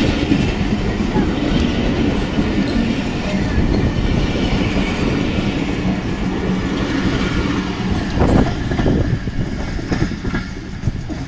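Passenger coaches of a departing train rolling past, the steel wheels clattering over the rail joints. About eight seconds in the last coach goes by, and the rolling sound thins out as the train pulls away.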